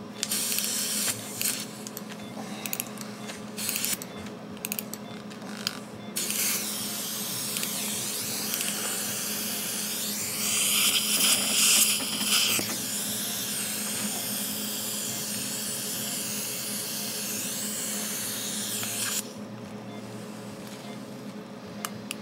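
Dental surgical suction hissing steadily for about thirteen seconds, louder for a couple of seconds in the middle. Before it come a few seconds of scattered clicks from metal dental instruments.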